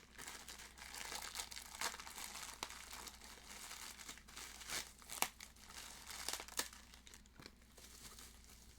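Plastic wrapping crinkling and tearing as a Funko Soda vinyl figure is unwrapped by hand, with scattered sharp crackles.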